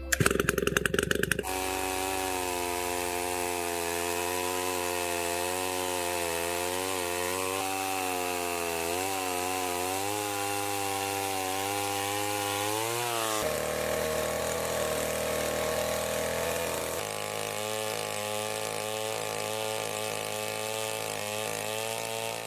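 Restored two-stroke gasoline chainsaw running, with a rapid rattle for the first second or so. Its engine note then wavers up and down as it cuts through logs, shifting pitch sharply about two-thirds of the way through.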